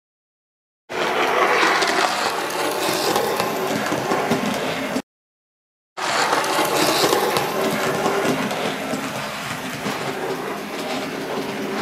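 Model railway train running on the track: a steady mechanical whir and rattle of motor and wheels on the rails, cut by a second of silence at the start and again about five seconds in.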